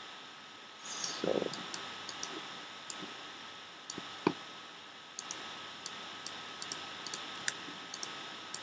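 Scattered, irregular clicks of a computer mouse and keyboard being worked, over a faint steady hiss and a thin high hum.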